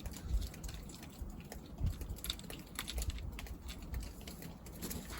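Scattered light clicks and taps, like small metal parts and tools being handled, over a low rumble, with the dozer's engine stopped.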